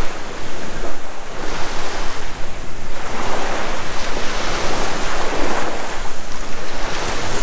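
Small waves breaking and washing up a sandy beach, the rush of the surf swelling and easing every second or two, with some wind noise on the microphone.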